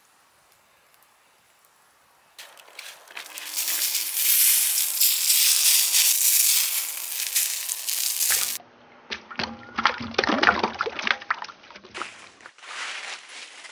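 Hot roast chicken sizzling with a loud, steady hiss as a cast-iron cooking lid is lifted off it. Then, after an abrupt change, a run of sharp crackles and clicks.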